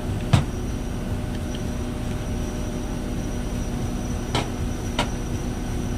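Steady mechanical hum with a faint high whine, broken by three sharp clicks: one about a third of a second in and two close together near the end.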